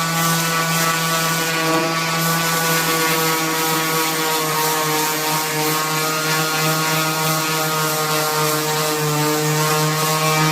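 An electric power tool's motor running steadily at one constant speed, giving an even hum with a whine above it.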